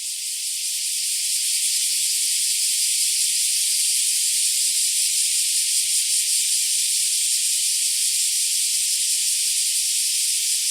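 A steady, even hiss with no low end, holding level throughout.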